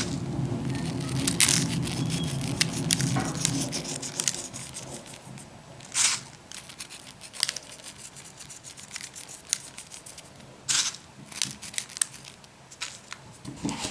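Rustling, crinkling and scattered sharp clicks of hands sprinkling sesame seeds over braided yeast-dough buns. A low hum fades out about four seconds in.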